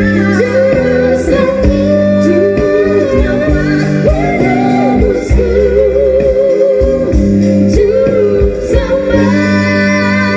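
A song sung with vibrato over a steady accompaniment of held low chords.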